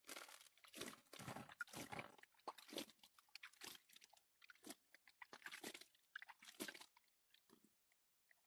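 Faint, irregular gritty scraping and crunching of wet sand and gravel as gold-panning concentrate is washed out of a black riffled plastic gold pan into a green pan, thinning out near the end.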